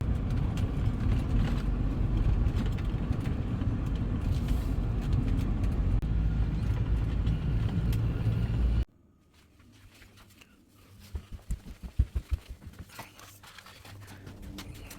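Steady low rumble of a moving vehicle, which cuts off suddenly a little more than halfway through. A much quieter stretch follows, with a quick run of soft thumps near the end.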